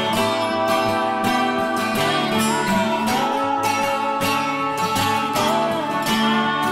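Background music: acoustic guitar strummed in a steady rhythm, about two strums a second.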